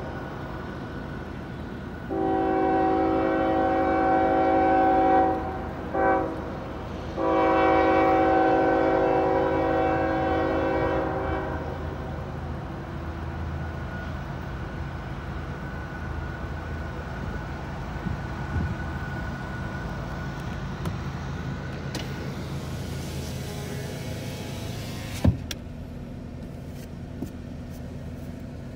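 Diesel freight locomotive's multi-note air horn sounding a long blast, a short one, then a long one that fades out. This is the end of the standard long-long-short-long grade-crossing signal. A steady low rumble follows, with one sharp click later on.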